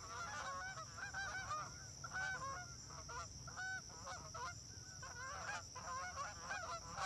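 A flock of Canada geese honking, many calls overlapping in a continuous chorus.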